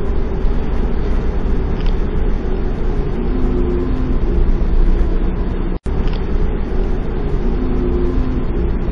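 Steady low rumble and engine hum of a ferry under way, heard on board, with a brief dropout about six seconds in.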